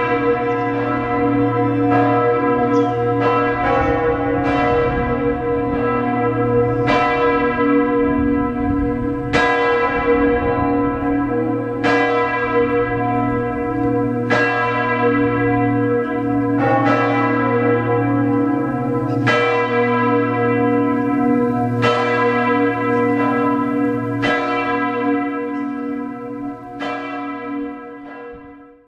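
Several church tower bells ringing together, their strikes overlapping every second or two, each with a long ringing decay over a steady hum. The ringing fades out near the end.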